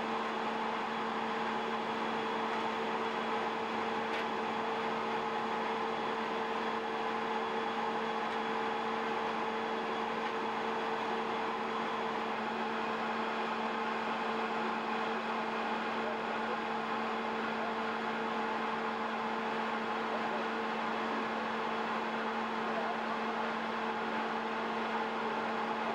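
Steady hum of two held tones over an even hiss, unchanging in level.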